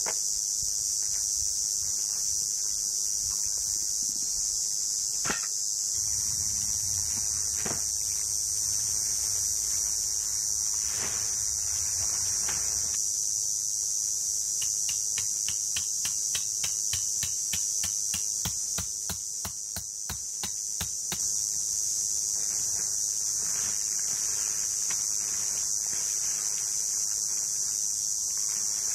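Steady, loud, high-pitched chorus of insects. A run of quick clicks and light knocks comes through it in the middle.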